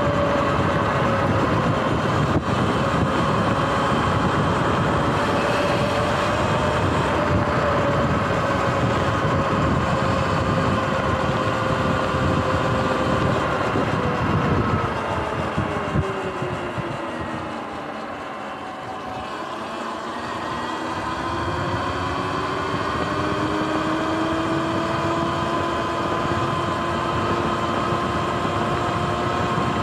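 Sur-Ron X electric dirt bike's motor whining under way over a rush of wind and road noise. About halfway through, the whine glides down in pitch and the rush fades as the bike slows. It then rises again as the bike speeds back up.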